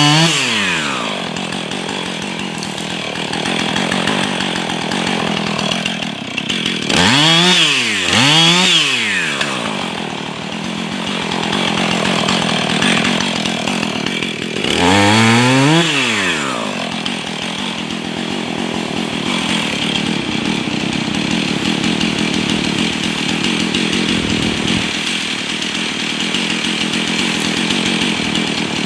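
Husqvarna 445 two-stroke chainsaw fitted with a new bar, revved up and back down near the start, twice in quick succession about a third of the way in, and once more around the middle, running steadily in between as it cuts wood.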